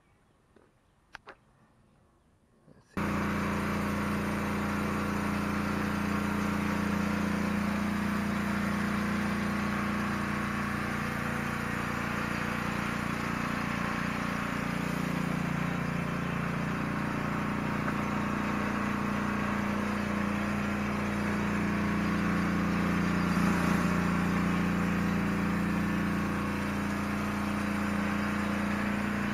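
Pressure washer engine running steadily, with the hiss of water spraying from a rotary surface cleaner scrubbing concrete. It cuts in suddenly about three seconds in, after a few faint clicks.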